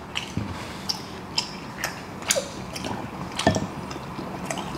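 Eating sounds: irregular clicks and smacks from chewing oxtail, while gloved fingers pick through the sauce-covered meat in a glass dish.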